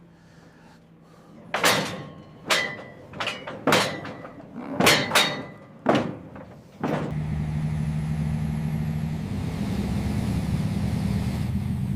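A series of sharp knocks and clanks, some ringing briefly, like a heavy door or gate. About seven seconds in, a large vehicle's engine comes in and runs steadily.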